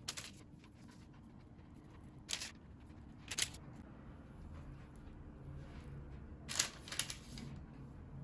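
Faint, brief rustles of parchment paper, a few times, as raw crescent-shaped dough rolls are set down on a paper-lined baking tray.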